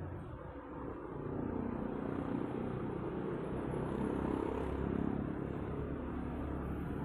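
Motor vehicle engine rumbling in outdoor night ambience, growing louder about a second in and holding steady.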